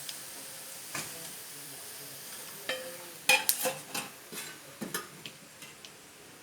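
Wheat-flour batter fritters frying in hot oil with a steady sizzle, while a utensil clinks and scrapes against the pan as they are scooped out; the clinks come thickest from about three to five seconds in.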